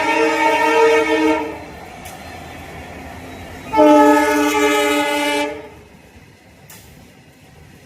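Indian Railways train horn sounding two blasts: the first ends about a second and a half in, and a second blast of about two seconds follows. Fainter train running noise sits under and between the blasts.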